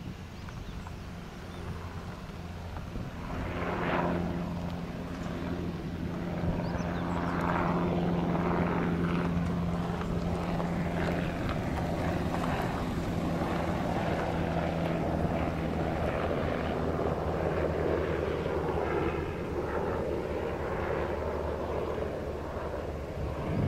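UH-60 Black Hawk-type twin-turbine helicopter flying past, its rotors beating steadily over a low hum. It grows louder a few seconds in and stays loud.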